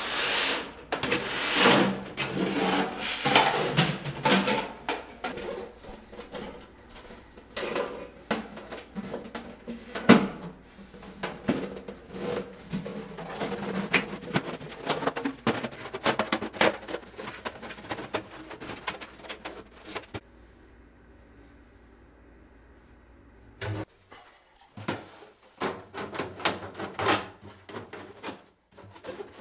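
Thin galvanized sheet-metal duct pipe being handled and joined. The crimped ends of 6-inch round duct sections scrape and slide over one another and onto a duct tee, with irregular clanks and knocks of the metal. The handling stops for a few seconds about two-thirds of the way in, then more knocks follow near the end.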